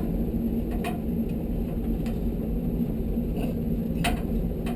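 Sharp metallic clicks and taps, about six of them spread unevenly, as a screw is undone and parts of a tankless water heater's casing are handled. A steady low hum runs underneath.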